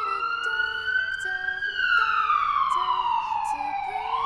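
Wailing siren tone: it rises for about a second and a half, falls slowly for more than two seconds, then starts rising again near the end, with faint short melody notes beneath.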